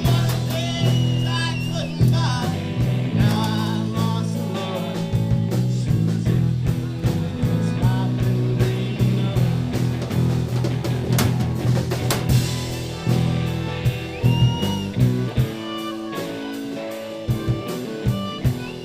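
Live blues-rock band playing, with guitar, a steady bass line and drums, and a singing voice in the first few seconds.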